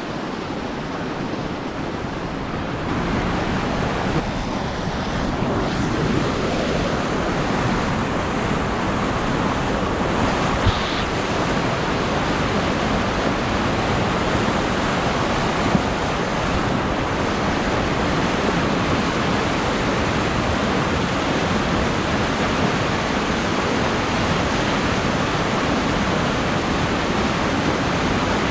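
Steady rush of white water pouring over a low river dam into rapids.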